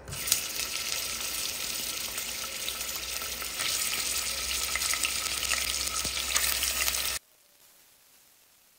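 Food frying in hot oil in a pan: a steady crackling sizzle that cuts off suddenly about seven seconds in.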